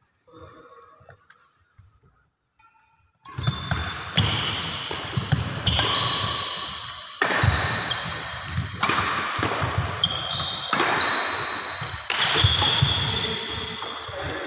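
Badminton rally on a wooden court, starting about three seconds in: sharp racket strikes on the shuttlecock every second or two, with shoes squeaking and thudding on the floor in between, all echoing around the hall.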